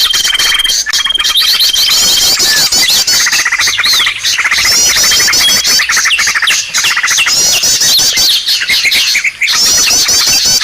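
Bird-lure recording of many small birds calling at once: dense overlapping chirps, rapid trills and high whistles, with a long steady whistled note over the first two seconds. It is the kind of call played to draw small birds such as prinias in.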